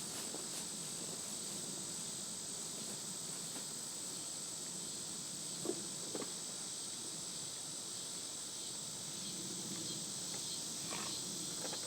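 Steady high-pitched insect chorus of crickets or similar insects. Two faint clicks come about six seconds in.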